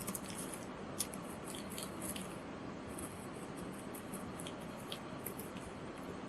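Printed etching paper being cut: a run of small, crisp high-pitched ticks and snips, with a sharper click about a second in, over steady room hiss.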